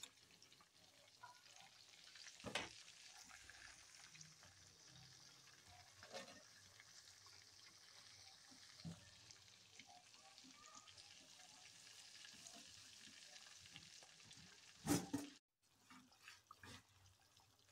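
Faint, steady sizzling of a whole black pomfret shallow-frying in oil in an aluminium pan. A few light clicks break in, and a sharper knock comes near the end.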